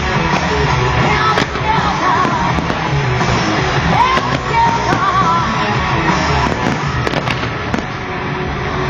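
Loud music with a singing voice, with fireworks shells bursting over it in several sharp bangs.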